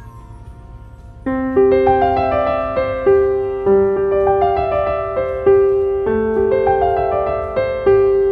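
Background piano music that comes in about a second in: a repeating pattern of single notes over held bass notes.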